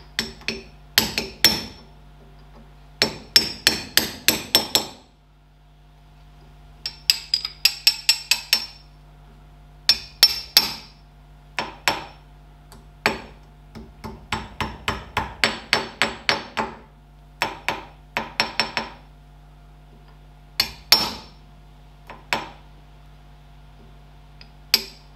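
Small hammer striking a steel punch held against the split pin of a castellated hub nut, in short runs of quick metallic taps, several a second, with pauses between.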